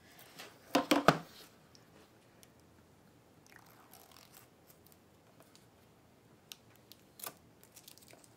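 Clear plastic bag crinkling as a desktop hard drive is slid out of it. There is a loud burst of rustling about a second in, then faint rustles and two light clicks near the end.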